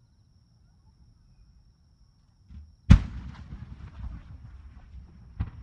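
Fireworks display: after a quiet stretch, a soft thump and then, about three seconds in, a loud shell burst with a rumbling, crackling tail; a second, sharper bang follows near the end.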